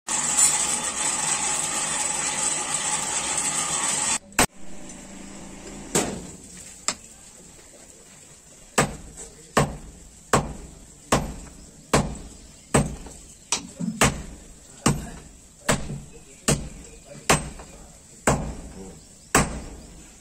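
Hand hammer striking a red-hot billhook blade on a small anvil, the blows at a steady pace of a little more than one a second, each with a short ring. The first four seconds hold a loud steady rushing noise that cuts off abruptly.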